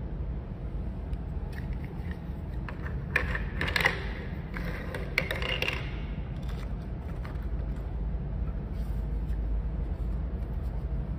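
Small toy wafer pieces clicking and scraping against each other and the tabletop as they are handled and set down, busiest in the first half and sparser later, over a steady low rumble.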